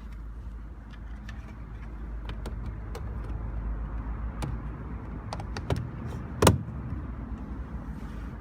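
Low steady rumble inside a car, with scattered light clicks and one sharp click about six and a half seconds in.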